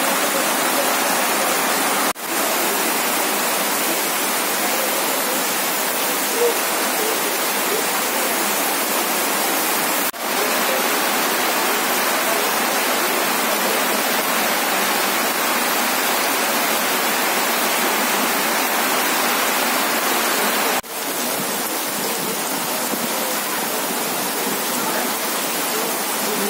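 Heavy rain pouring down: a steady, dense rushing hiss of rain on wet ground and runoff, breaking off for an instant three times.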